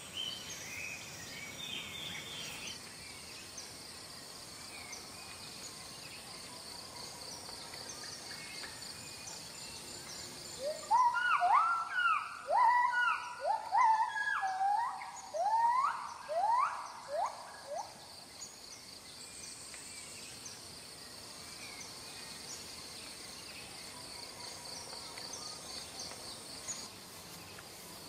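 Rainforest ambience: a steady insect drone with a fast pulsing buzz. About eleven seconds in it is broken by some seven seconds of loud, repeated calls, each sliding sharply upward in pitch; they overlap at first, then come further apart and stop.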